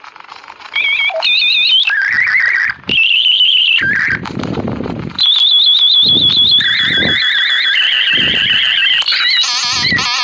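Dial-up modem handshake: warbling high tones that jump from pitch to pitch, broken by short bursts of hiss, growing loud about a second in.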